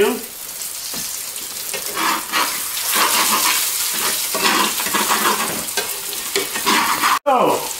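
Breaded pork chops searing in a cast-iron skillet of hot butter and oil, with a steady sizzle. Metal tongs scrape and click against the pan as the chops are turned.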